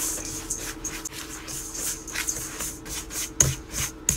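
A red spatula stirring and scraping a dry mix of white sugar, brown sugar and ground cinnamon around a stainless steel bowl, in quick repeated scraping strokes.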